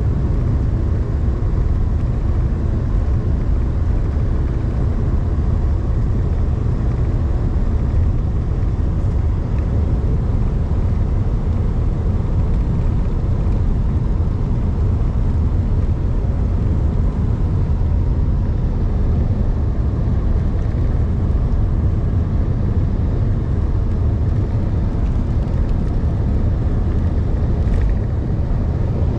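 Steady low rumble of a moving vehicle, the road and engine noise holding at an even loudness throughout.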